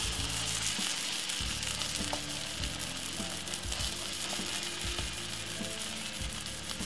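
Cheese omelette sizzling in oil in a non-stick frying pan, a steady hiss, with occasional light taps and scrapes of a slotted spatula pressing it.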